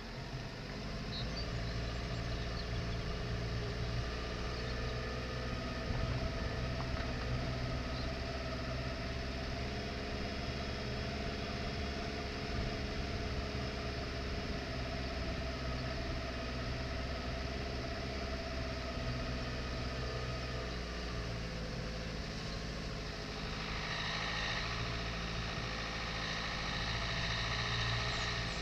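Dacia Duster's 1.5 dCi four-cylinder turbodiesel running steadily at low speed while the car crawls along a rough dirt track. A higher hiss joins the engine drone about two-thirds of the way through.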